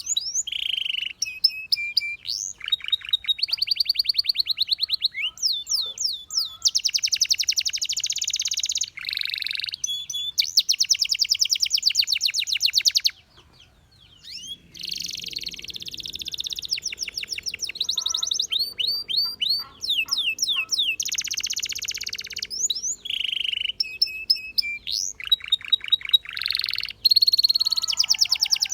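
Domestic canary singing a long, high-pitched song of fast trills and rolls, phrase after phrase of rapidly repeated notes mixed with quick sweeping whistles, with one short break about halfway through.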